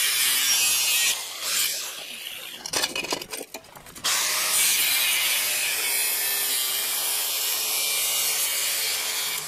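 Angle grinder with a cut-off disc cutting through the thin steel wall of an empty gas cylinder around its outlet valve. A first cut stops about a second in, and a few knocks follow while the grinder is repositioned. Steady cutting picks up again about four seconds in.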